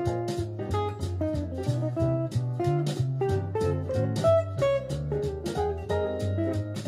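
Archtop electric guitar playing melodic lines over a backing track of bass and drums, picked up from loudspeakers, with a steady beat.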